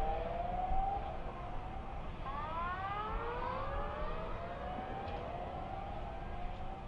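Siren wails rising in pitch again and again, several overlapping, over a steady low rumbling noise.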